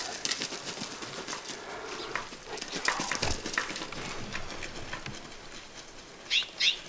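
Scattered clicks and rustling, then near the end three quick, short falling chirps of a bird call.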